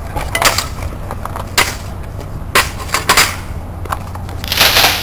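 Sharp knocks and bangs, a handful spaced irregularly, then a longer, louder crash near the end, over a steady low rumble.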